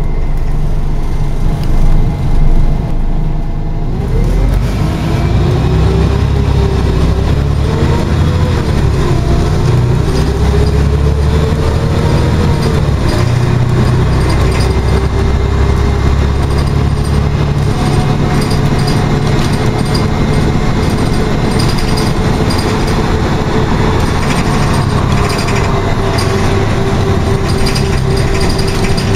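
Inside a Scania OmniCity articulated bus under way: the diesel engine and drivetrain drone with road and tyre rumble. A drivetrain whine wavers up and down in pitch as the bus changes speed, then holds steady. Past the middle, the heavy low rumble eases.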